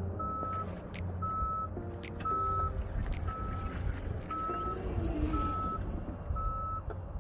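Forklift reverse alarm beeping steadily, one short single-pitch beep about every second, as the forklift backs up, over the low running noise of the forklift.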